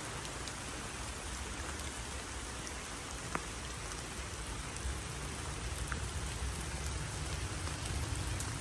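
Steady rain falling on forest leaves, with a few single drops ticking close by.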